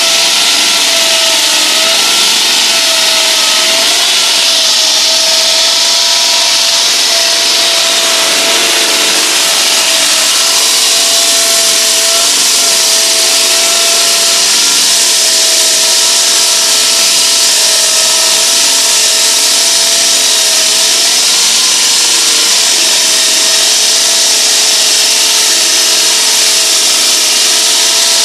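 Hydraulic diamond wall saw cutting reinforced concrete, running steadily: a constant whine over a loud hiss.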